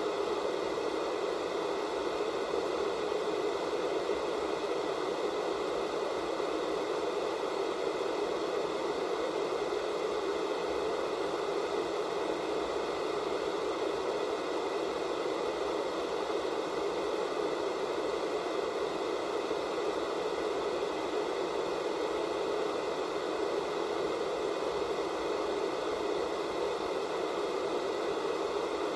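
Analog television static from a set with no signal, a steady unbroken hiss that is fullest in the lower-middle range, with faint steady tones above it.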